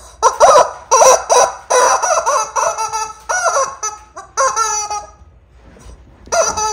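Squeaky plush toy being chewed by a Bernese mountain dog, its squeaker letting out a quick run of short squeaks, about a dozen in the first five seconds, then one more near the end.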